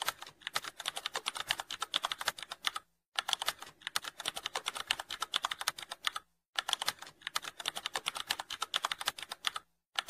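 Rapid computer-keyboard typing clicks, a typing sound effect for text being typed out on screen, in runs of about three seconds broken by brief pauses.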